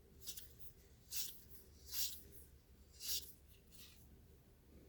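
Baseball trading cards sliding against each other as a stack from a pack is flipped through one card at a time: four soft swishes about a second apart.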